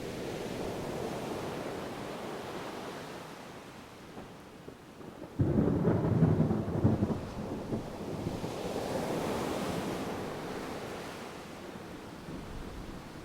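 Ocean surf washing steadily, with a sudden crack of distant thunder about five seconds in that rumbles for a couple of seconds and fades back into the waves.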